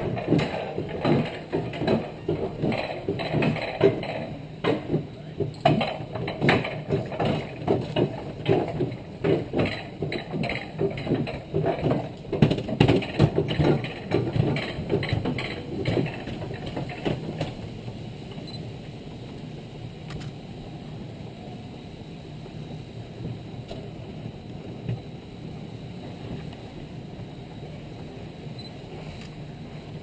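Rail-mounted bobsled (alpine coaster sled) running along its steel tube rails, its wheels giving a rapid rattling clatter. A little past halfway the clatter dies down to a quieter, steady rolling rumble.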